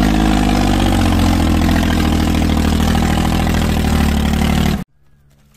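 Eicher 485 tractor's three-cylinder diesel engine running steadily while pulling a trailer loaded with logs. The sound cuts off suddenly a little before the end.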